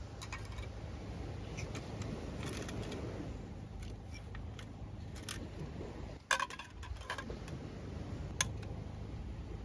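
Scattered light clicks and clinks of small hard objects being handled, the sharpest about six seconds in and again a little after eight seconds, over a steady low rushing noise.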